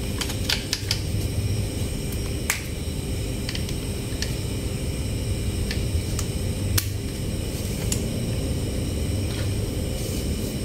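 Scattered light clicks and taps of a plastic toy truck being handled, its ramp and frame parts knocking, over a steady low hum.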